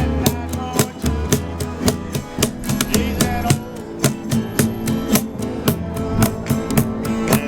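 Live Americana band playing an instrumental passage of a slow country-style song, guitars strumming a steady rhythm.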